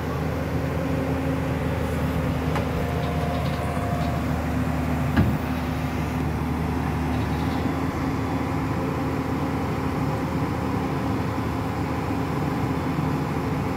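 JCB 205 tracked excavator's diesel engine running steadily, with a single sharp knock about five seconds in.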